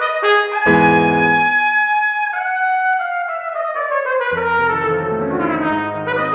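Solo trumpet playing a slow, lyrical melody that descends gradually, with piano accompaniment. The piano drops out for a couple of seconds in the middle and comes back in near the end.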